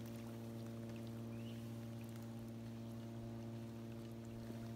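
A steady low hum, with faint splashing and sloshing from hands holding a bass in the shallow pond water to revive it.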